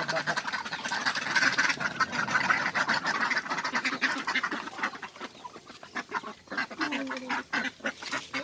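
Several domestic ducks quacking together in a busy, overlapping chorus, densest in the first half.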